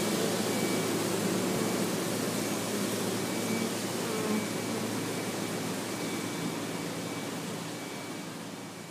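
Honeybees buzzing in a steady, many-voiced hum around a hive, slowly fading away toward the end.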